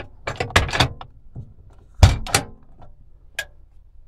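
Heritage steel keypad safe's door handle and bolt mechanism being worked: light clicks as the handle is turned, then a loud metal thunk about two seconds in, a second knock right after, and a last click near the end.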